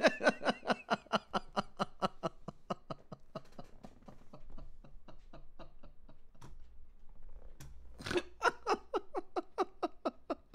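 A man laughing hard in one long fit of rapid pulses, about six a second. It dies down to faint shaking in the middle and breaks out loudly again about eight seconds in.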